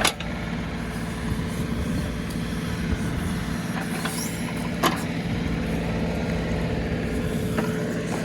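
John Deere 2038R compact tractor's three-cylinder diesel engine running steadily while driving the 270B backhoe on a tree stump, with a sharp knock at the start and another about five seconds in.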